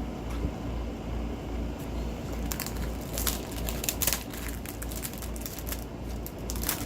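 Packaging being handled: rustling and crinkling, with a cluster of sharp crackles in the middle and a few more near the end, over a steady low hum.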